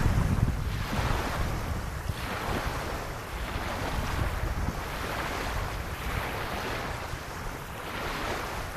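Small waves lapping on a sandy beach, the water washing in and ebbing every second or two. Wind rumbles on the microphone near the start.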